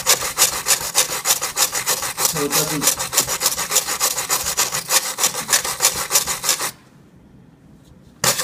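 Stainless steel wire brush scrubbing an aluminum heat exchanger in rapid back-and-forth scraping strokes, cleaning the metal before TIG welding. The brushing stops for about a second and a half near the end, then starts again.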